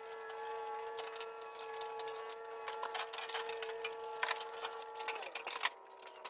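A steady tone with overtones that drops slightly in pitch about five seconds in. Over it come two short metallic clinks, about two and four and a half seconds in, from an adjustable wrench working a bolt on the steel cart frame.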